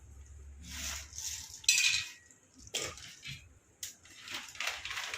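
Kitchen utensils and a cooking pot clinking and scraping as dry pasta is put into boiling water: several separate clatters, the loudest about two seconds in.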